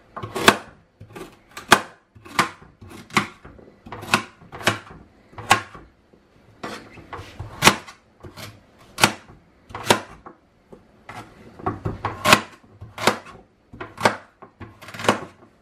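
Kitchen knife chopping carrots into small pieces on a plastic cutting board: a sharp knock each time the blade goes through and strikes the board, irregular, roughly one or two a second.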